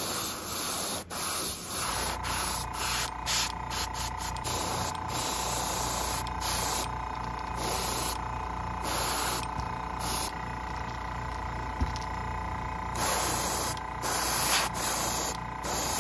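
Airbrush spraying paint onto a crankbait lure in short and longer bursts of hiss as the trigger is pressed and released. A steady hum comes in about two seconds in and runs under it.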